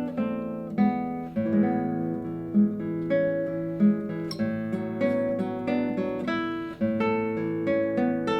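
Classical guitar played solo: a continuous line of plucked notes, each ringing on over sustained bass notes.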